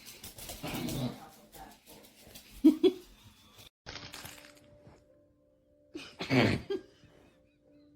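A pet dog vocalizing twice: a short yip about three seconds in, then a louder call a little past the middle. A faint steady hum runs under the second half.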